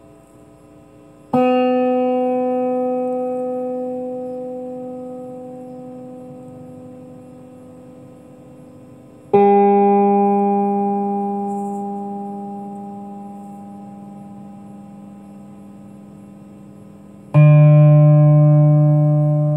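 Electric guitar struck three times, each note or chord left to ring out and fade slowly over several seconds, each one lower in pitch than the last.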